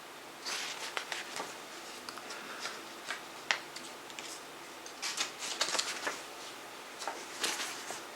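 CD jewel cases and their paper inserts being handled: scattered small plastic clicks and short bursts of rustling, the sharpest click about three and a half seconds in.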